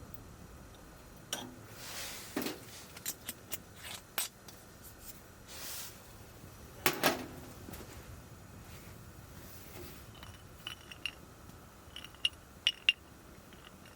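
Small hard objects being handled: scattered clicks, taps and light clinks of metal or glass, the loudest clink about seven seconds in, then three quick clicks near the end.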